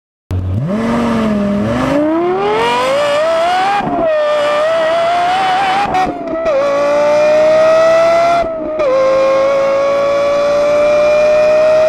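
Lexus LFA's 4.8-litre V10 accelerating hard from a standstill, revving up through the gears with quick upshifts from first to fourth about 4, 6.5 and 9 seconds in. At each shift the pitch drops briefly and then climbs again. The sound starts abruptly just after the opening.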